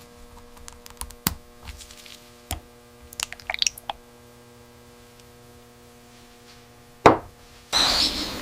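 Steady electrical hum with scattered light clicks and knocks, a few short high squeaks around the middle, and one louder knock about seven seconds in. A broad rushing noise starts just before the end.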